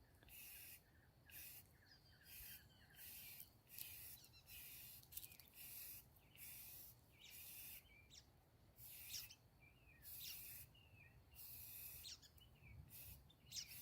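Aerosol spray-paint can hissing in short bursts, about one a second, as fast-dry satin paint goes on.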